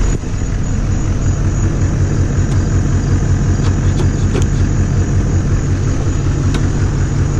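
Duramax 6.6-litre V8 turbo-diesel idling steadily shortly after a cold start, with a few light clicks over it.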